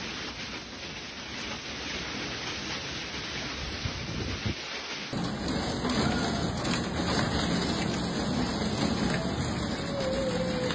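Hail and heavy rain pelting down in a steady hiss. About five seconds in it changes abruptly to hail striking a wooden deck, a fuller patter with more low end.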